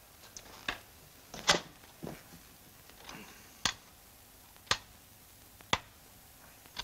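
Beads of a wooden Russian abacus (schoty) clacked across by hand, one sharp click at a time, about once a second, as sums are counted off.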